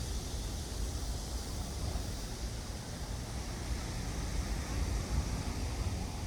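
Steady outdoor background noise: a low rumble with a soft hiss above it, unbroken and without distinct events.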